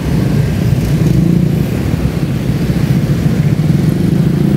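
Motorcycle engine running close up as the bike rides on through slow traffic, getting louder right at the start as it moves off and then holding steady.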